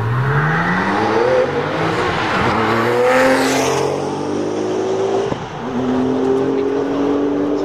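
Sports car accelerating hard away from a standstill. Its engine note climbs steeply, drops back at each gear change and climbs again through several upshifts.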